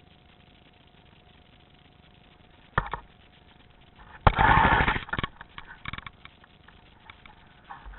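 Electric airsoft gun firing: a brief burst about three seconds in, then a longer automatic burst of about a second, the motor-driven gearbox cycling rapidly, followed by a few scattered clicks.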